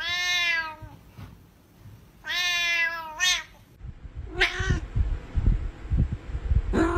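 Cats meowing: a long meow that falls slightly in pitch at the start, a long call and a short one about two and a half to three and a half seconds in, and a shorter call about four and a half seconds in. Low irregular thumping follows, up to a brief last call near the end.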